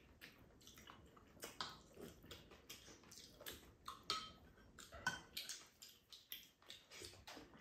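Faint eating sounds at a table: chopsticks and spoons clicking and scraping against ceramic bowls, with chewing in between. The clicks come irregularly, a few each second.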